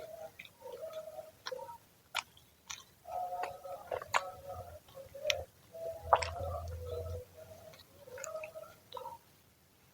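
Close-up chewing of crunchy freshly fried fritters, with a run of sharp crunches between quieter stretches of chewing; the loudest crunches come about four and six seconds in.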